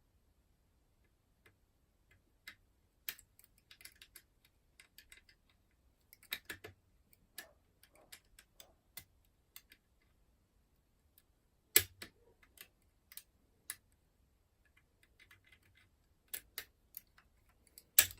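Curtain pick and tension tool working the levers inside an ERA Fortress five-lever mortice lock: scattered small metallic clicks and ticks at an uneven pace, with a sharper click about two-thirds through and another at the very end.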